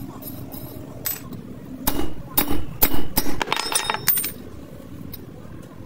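A quick run of sharp metallic knocks and clinks, about seven in two seconds, starting about two seconds in, over a steady low hum.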